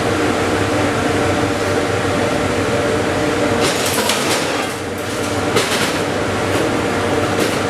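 LG-40Y welder-plasma cutter running with a steady mechanical hum from its built-in fan and air compressor unit, with a few short metallic clanks around the middle and near the end.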